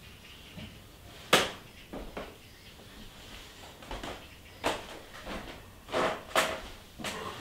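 Irregular sharp knocks and clacks, the loudest about a second and a half in, with a cluster of smaller ones near the end, over faint room noise.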